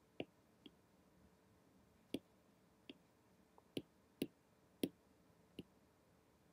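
Faint, sharp clicks of a stylus tip tapping on a tablet's glass screen, about nine at irregular intervals.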